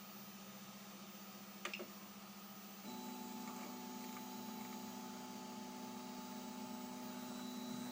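Stepper motor driving the Cobblebot Little Monster 3D printer's Y axis, moving the bed back: a steady whine that starts about three seconds in and holds, over a constant electrical hum. A single click comes shortly before the motor starts.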